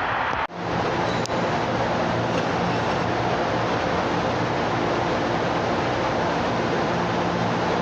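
CTA 'L' rapid-transit train running, a steady rail rumble with a faint low hum. There is a brief sudden dropout about half a second in.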